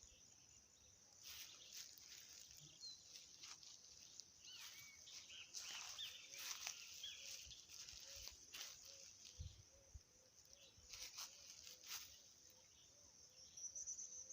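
Faint natural ambience: a steady high-pitched insect drone, with scattered faint bird chirps and a few light clicks.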